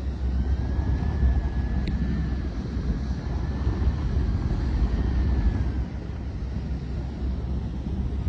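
Wind buffeting the microphone on a sailing boat, a low rumbling rush, with a faint high steady tone through the first six seconds or so and a single click about two seconds in.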